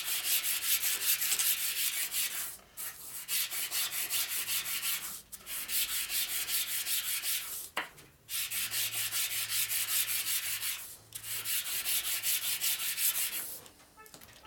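A small metal engine part being hand-lapped face-down on worn 220-grit sandpaper stuck to a flat table: a steady rasping rub of quick strokes, in runs of about two and a half seconds with short pauses between, and a light tap about halfway through. The rubbing is the part's gasket face being worn down flat, and it stops near the end as the part is lifted.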